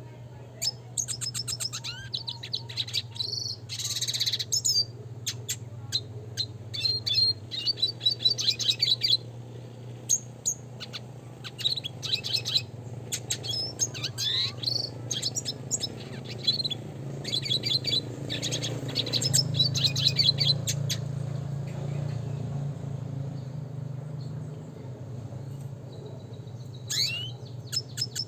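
Red siskin singing: rapid twittering trills and chattering phrases with quick gliding notes, falling quieter for a few seconds near the end before another short burst. A steady low hum sits underneath.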